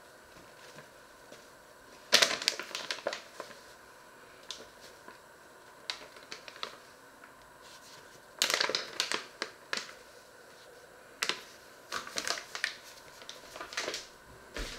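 Paper flour bag crinkling and rustling in bursts of crackle as flour is shaken out of it into a steel bowl, loudest about two seconds in and again around eight seconds.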